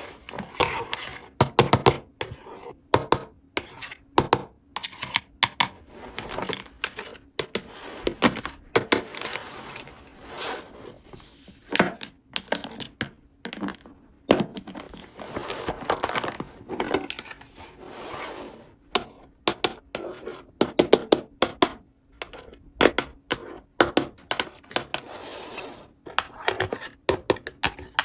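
Hands handling a plastic toy playset and its packaging: a close, irregular stream of clicks, taps and rustles.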